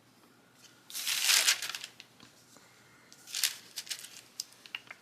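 Paper sticker sheet crinkling as big stickers are peeled off their backing, in two rustling bursts about a second in and about three seconds in, followed by light taps and clicks as a sticker is pressed into place.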